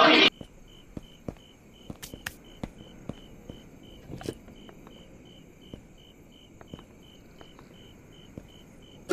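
Loud music cuts off right at the start. After it comes a high cricket chirp repeating steadily about twice a second, over faint scattered clicks and knocks.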